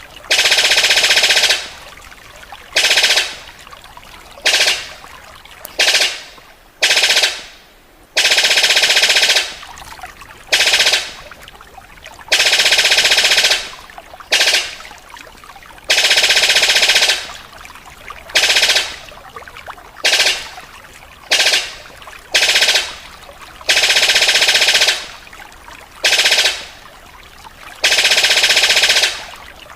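Sicklebill (paruh sabit) bird calling in loud, rapid, rattling bursts that sound like gunfire. The bursts repeat every second or two, longer ones of about a second and a half alternating with several short ones.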